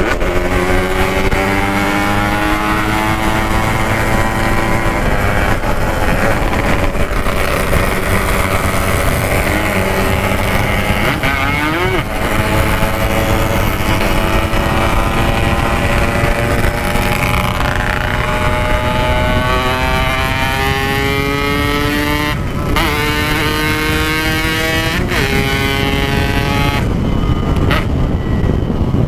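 Yamaha RX-King 135cc two-stroke motorcycle engine running on an aftermarket 'packing power' exhaust while riding, its pitch slowly rising and falling with the throttle. Wind rushes over the microphone, and the engine note breaks briefly a few times near the end.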